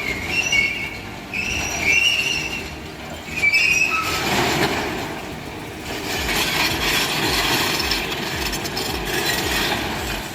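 High-pitched metal-on-metal squealing, three squeals in the first few seconds, then a steady grinding rumble with an even, rhythmic low knocking.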